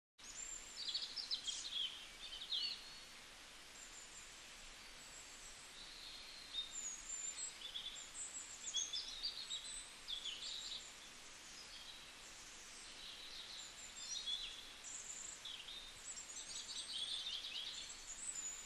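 Small birds chirping and twittering, short high calls coming one after another over a faint steady hiss.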